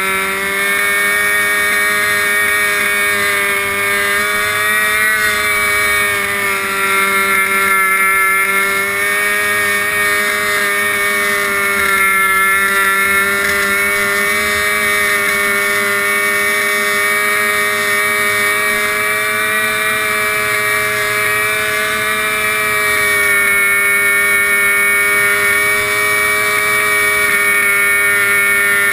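Riding lawn mower's engine running at a steady high speed through a tall open exhaust stack as the mower drives along, its pitch wavering only slightly.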